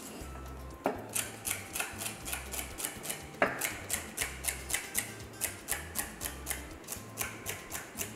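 Chef's knife chopping celery on an end-grain wooden cutting board: a steady run of knife strikes on the wood, about three a second, starting about a second in, with one louder knock near the middle.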